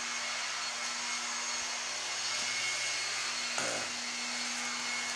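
Steady whooshing hiss with a low hum under it, like a machine or fan running; a brief pitched sound about three and a half seconds in.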